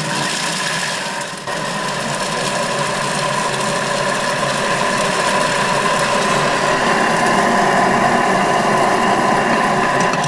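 Thermomix food processor running its blade at speed to chop cheese finely: a loud, steady motor noise with a held whine, growing a little louder through the second half.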